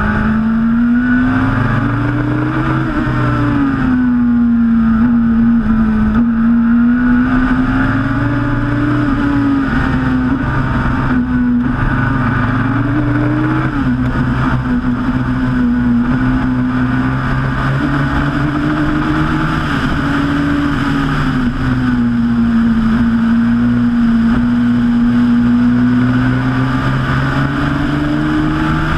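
Turbocharged Suzuki Hayabusa inline-four engine of a Westfield Megabusa race car at racing speed, heard onboard from the open cockpit. Its pitch climbs and drops back every few seconds as the revs rise and fall.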